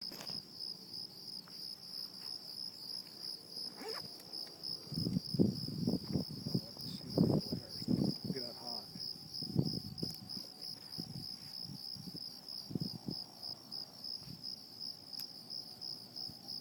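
Crickets chirping in a steady, evenly pulsing high trill, with a man's loud, drawn-out belching about five seconds in, lasting several seconds, and a few weaker belches a little later.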